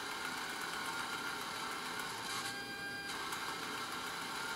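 Aircraft altimeter's 400 Hz AC servo motor and gear train whirring steadily as they drive the pointer and drum counters, following a synchro input. The whir carries a few high whining tones that shift briefly about halfway through.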